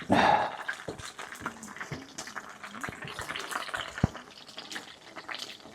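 Chicken schnitzels sizzling and crackling in a frying pan, with a louder burst of sizzle right at the start.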